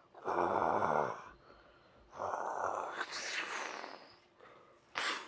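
Breathy dinosaur roars made with a person's voice: one about a second long, a longer one after a short gap, and a short sharp one near the end.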